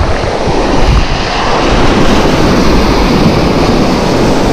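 Surf breaking and washing up a sand-and-pebble beach, one wave swelling louder a second or so in, with wind buffeting the microphone.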